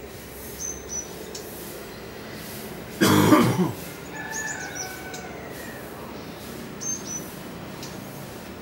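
Small birds chirping in short, high calls several times. One loud, sudden sound lasting under a second comes about three seconds in.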